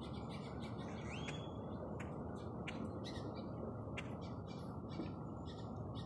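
Birds calling: a series of sharp clicks and a rising whistle about a second in, over a steady low background rumble.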